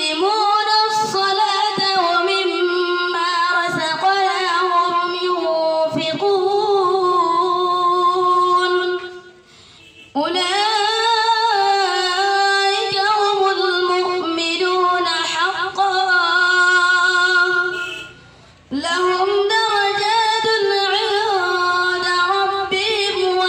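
A boy's voice reciting the Quran in melodic tilawat style, in long, held, ornamented phrases. There are two short pauses for breath, about nine and about eighteen seconds in.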